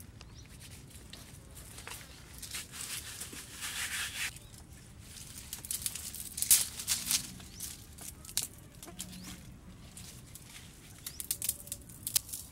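Small wood fire crackling under a clay cooking pot, irregular sharp snaps, with dry twigs and leaves rustling as they are pushed into it; the crackle is densest in the middle.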